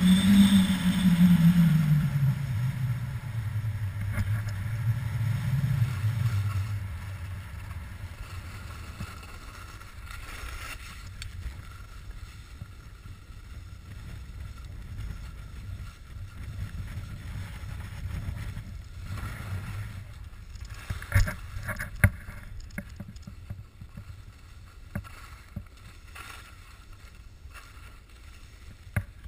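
Skis sliding over snow with wind rushing over the microphone. Loud at first, then settling to a steadier, quieter hiss, with a few sharp clicks about two-thirds of the way through.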